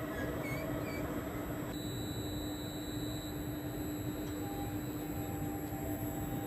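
Double-deck regional train standing at the platform with a steady hum, a few faint high squeaks in the first second, and the train starting to move off near the end.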